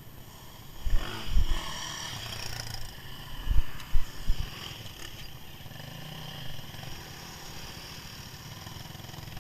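An off-road vehicle engine running steadily in the background, with heavy low thumps of wind or handling on the microphone twice, about a second in and again about three and a half seconds in.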